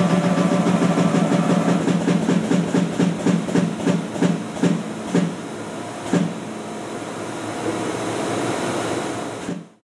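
Hydraulic machinery fitted with automatic hydraulic mould clamps running with a loud throbbing pulse. The pulse slows and fades out over the first six seconds, leaving a steady, quieter hum that cuts off suddenly near the end.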